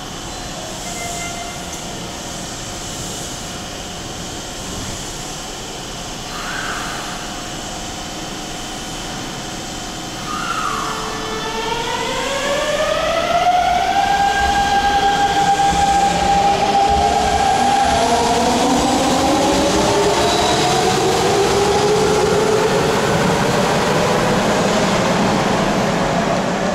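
Hanshin 5500 series 'Jet Car' commuter train standing at the platform, then pulling away about ten seconds in with fast acceleration. Its traction-motor whine climbs in pitch in several stepped glides, louder as it picks up speed and runs out of the station.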